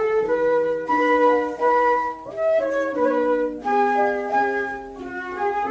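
Instrumental break in a children's song: a melody of held notes moving step by step over a lower accompaniment, with no singing.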